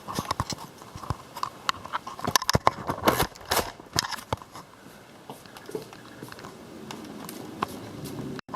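A quick, irregular run of sharp clicks and knocks for about four seconds, then a quieter steady hum with an odd click.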